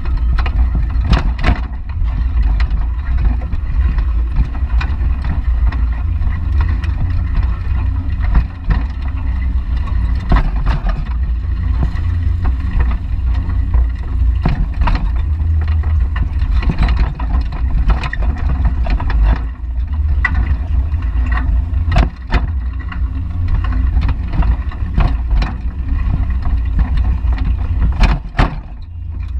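Wind buffeting the microphone of a GoPro on a moving bicycle: a steady low rumble. Many short clicks and rattles from the bicycle's metal basket as the bike rolls.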